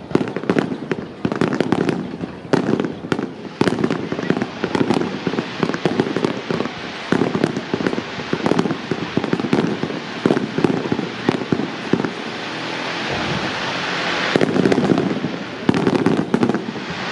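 Fireworks display: a rapid barrage of aerial shell bursts, many bangs a second. About three-quarters of the way through the bangs give way to a steadier, swelling hiss before the barrage resumes.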